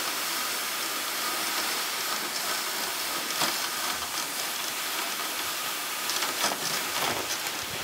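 Sled runners hissing steadily over packed snow while a dog team pulls, with a few faint ticks.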